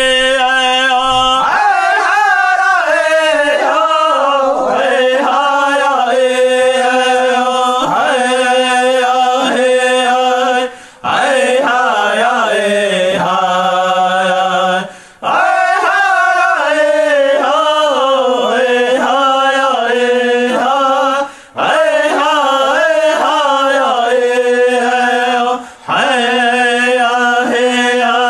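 Lakota/Dakota prayer song, chanted unaccompanied in long melodic phrases broken by four short pauses for breath.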